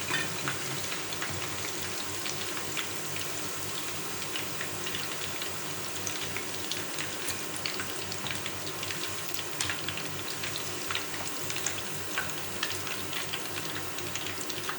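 Chicken pakora pieces deep-frying in oil on a low flame to cook through: a steady sizzle with scattered small pops and crackles.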